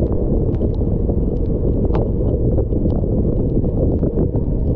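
Wind rumbling on an action camera's microphone while riding a mountain bike along a rain-wet road: a loud, steady low rumble with scattered light ticks over it.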